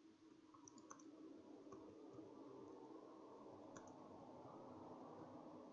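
Near silence with faint computer keyboard typing: a few soft key clicks over a low steady room hum.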